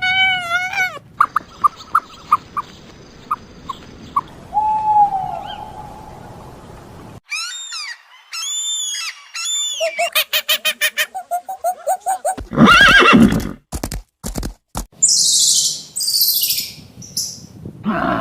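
A string of different animal calls, one clip cut hard into the next: pitched calls that bend up and down, quick runs of chirps, and a few high, hissing bursts.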